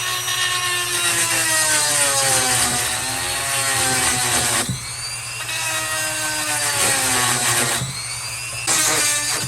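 Electric chainsaw sharpener's grinding wheel grinding chain teeth: a motor whine that dips and recovers in pitch under load over a high grinding hiss. It eases off briefly about halfway through and again near the end.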